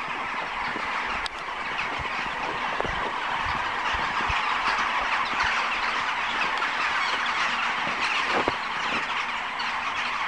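A massive flock of birds roosting in treetops, many birds calling at once in a dense, steady chatter.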